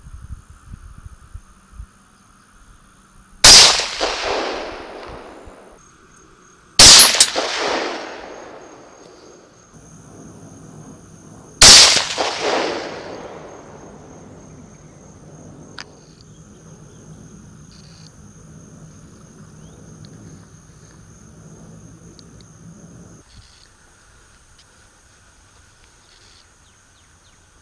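Three rifle shots from a Daniel Defense DDM4 AR-15 firing .223 soft-point rounds, spaced about three and a half and then about five seconds apart. Each loud crack is followed by a long rolling echo that dies away over about two seconds.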